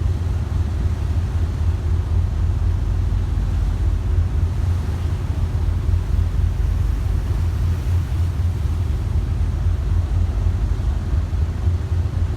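Steady low rumble of a motorcycle tricycle on the move: engine and road noise, with a heavy low drone.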